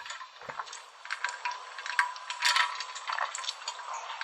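Ice cubes clinking and rattling in a cup of iced coffee as it is tipped and drunk, a run of small irregular clicks.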